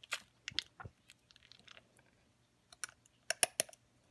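Metal dental hand scaler scraping and popping tartar off a dog's teeth: a scattered run of short, sharp clicks and scratches, the loudest cluster about three and a half seconds in.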